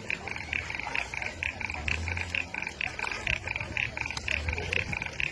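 A chorus of calling animals, giving short rasping pulses about four times a second. A low rumble rises under it now and then.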